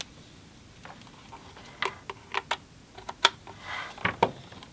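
A DisplayPort cable being handled and plugged in: a run of sharp clicks and knocks from its connector and plastic, with a brief rustle of the cable partway through.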